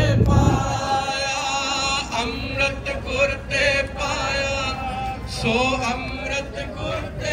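Male voices singing Sikh kirtan, a devotional hymn, in long held notes with a wavering pitch.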